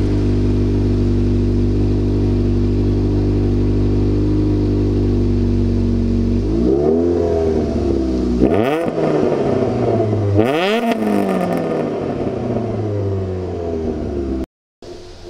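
Renault Sport Clio RS III's 2.0-litre four-cylinder engine through an R3 exhaust, running steadily at idle, then revved from about six seconds in. Two sharp blips come about two seconds apart, each rising and dropping quickly, before the revs settle back down.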